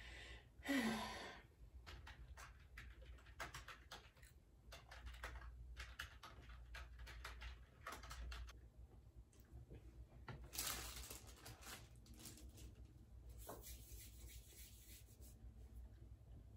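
Faint, scattered clicks and taps of a computer keyboard and mouse in a quiet room, with a short breathy exhale about a second in and another breathy sound about ten seconds in.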